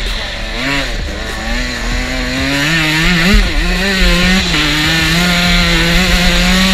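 Dirt bike engine running hard under throttle, its pitch rising and dipping around one and three seconds in, then holding steady, with wind rushing over the helmet microphone.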